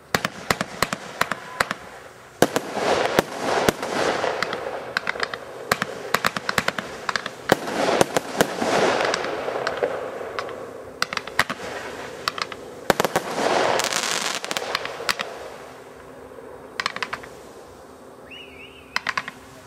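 Fireworks display: rapid sharp bangs and crackling come in three dense waves, each with a loud hissing swell, then thin to scattered pops near the end.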